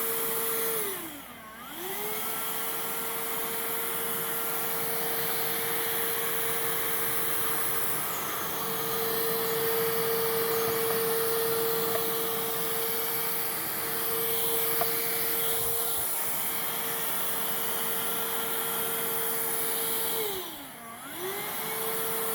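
Hoover React cordless vacuum running: a steady motor whine over rushing airflow, nice and quiet. About a second in, and again near the end, the motor briefly winds down and spins back up.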